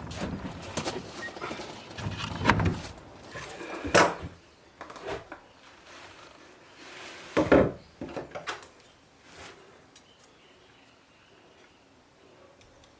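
Irregular knocks and clatter from work with timber and tools, with louder thuds about 2.5, 4 and 7.5 seconds in and lighter clicks between them.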